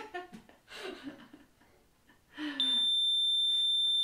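A REM-pod ghost-hunting device sounding its alarm: a single steady high-pitched tone that comes on about two and a half seconds in, after some faint murmuring voices. The investigators take its going off as an answer to their question.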